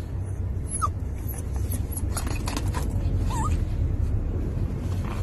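Shiba Inu whimpering in two short, high squeaks, about a second in and again past three seconds, over the steady low rumble of a moving car's cabin.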